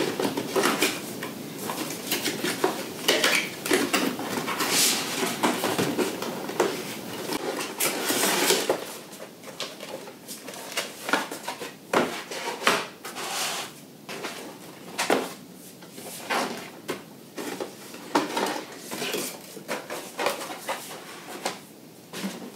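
Cardboard packaging being opened and unpacked by hand: flaps and inner boxes scraping and rustling as they are slid out, with irregular knocks as boxes are set down on the table.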